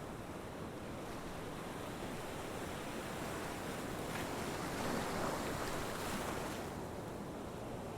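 A steady rushing noise that swells, loudest about five seconds in, then eases back.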